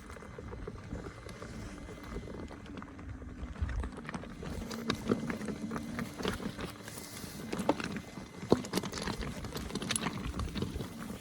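Electric unicycle riding over a rough, rocky trail: continuous rolling noise full of irregular clicks and knocks, with a steady hum in the first half that fades out about two-thirds of the way in.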